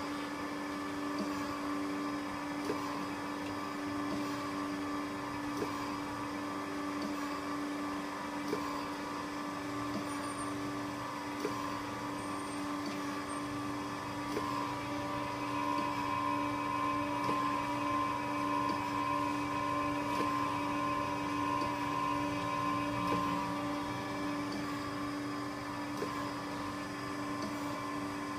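2003 Okamoto PSG63DX surface grinder running: a steady hum with a strong low tone and a higher whine that grows louder around the middle and eases near the end. A light click comes about every three seconds.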